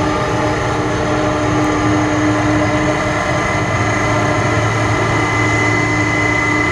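Boeing 767-300ER's twin turbofan engines running steadily as the airliner rolls along the runway: a constant high whine over a low hum and roar, with no change in thrust.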